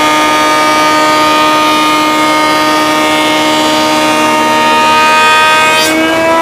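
Craftsman 10-amp 6-inch benchtop jointer running with a loud, steady high-pitched motor whine. The pitch rises slightly near the end.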